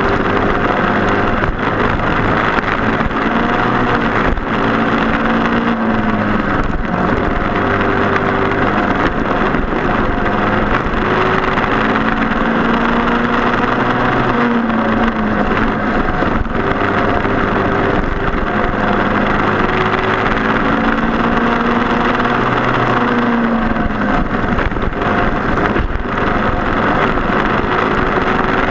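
Briggs & Stratton Animal single-cylinder four-stroke racing kart engines running at speed, their pitch rising and falling every few seconds as they drive through the corners and straights, over a steady rushing noise.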